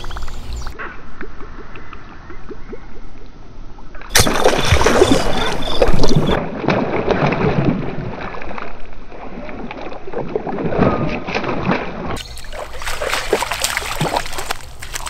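Water splashing at a pond's surface as a small largemouth bass strikes a topwater lure and thrashes; the sound changes abruptly several times, and the loudest splashing comes about four to six seconds in.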